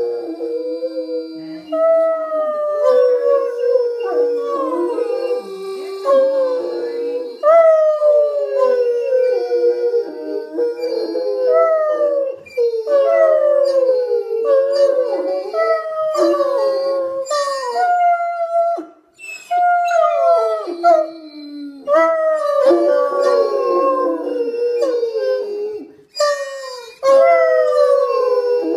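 Otterhounds howling together in chorus: several overlapping howls, each starting high and sliding down in pitch, with fresh howls every couple of seconds and a couple of brief pauses.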